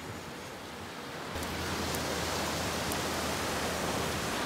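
Ocean surf washing up a sandy beach: a steady hiss with a low rumble under it, getting louder about a second and a half in.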